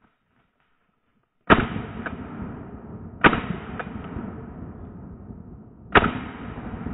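Three shotgun shots, the first about a second and a half in, then at roughly two-second and three-second gaps, each with a sharp crack and a long echoing tail rolling back through the woods.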